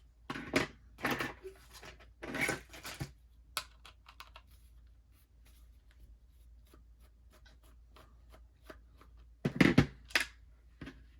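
A small plastic handheld laser thermometer being handled and taken apart: three bursts of scraping and rustling against its plastic housing, with many small clicks and taps between them.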